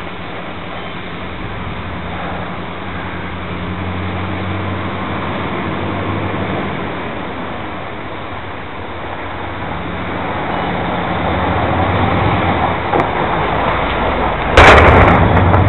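Steady rushing drone of a small quadcopter's spinning rotors with a low hum, slowly swelling and fading. About a second before the end a loud burst of fireworks cuts in.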